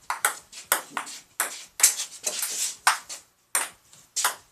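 Table tennis rally: the ball clicking off the paddles and bouncing on the table, about a dozen sharp taps in a quick, uneven rhythm, with a brief pause a little past three seconds in.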